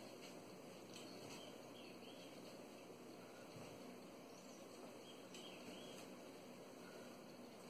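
Near silence: a faint steady hiss, with a few faint high chirps and one soft low thud.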